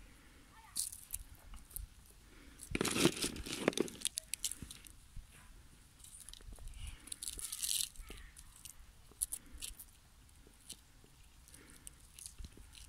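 An emu and young ostriches biting and tearing at lettuce held in a hand: crisp crunching and leaf tearing in irregular snatches, loudest about three seconds in and again near eight seconds.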